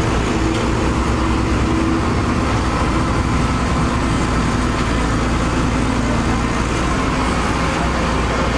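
Samsung wheeled excavator's diesel engine running steadily as it dumps a bucket of dirt into a dump truck and swings back, a continuous low engine rumble.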